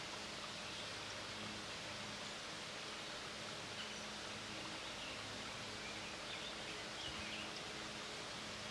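Quiet woodland ambience: a steady hiss of outdoor background noise under a low steady hum, with a few faint short bird chirps about halfway through.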